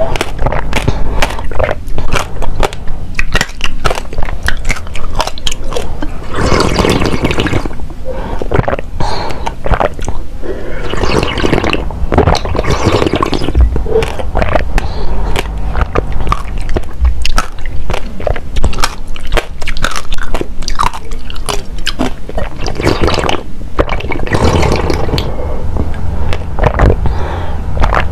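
Close-miked chewing of passion fruit pulp, the seeds crunching between the teeth in a dense run of small crunches and wet mouth clicks.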